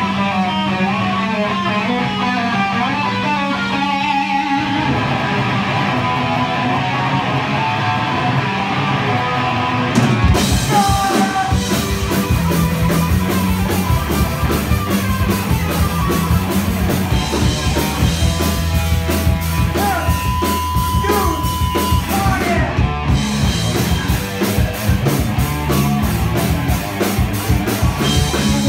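Live rock band playing electric guitars over a held low note, then about ten seconds in the drums and full band come in loud and dense.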